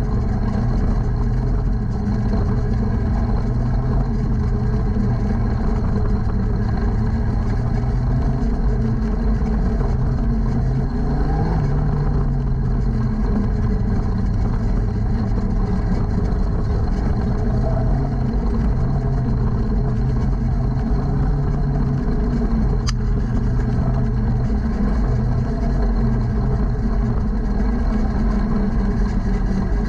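Junior sprint car's engine heard from the cockpit, running steadily and unrevved while the car rolls around the track at about 15 mph.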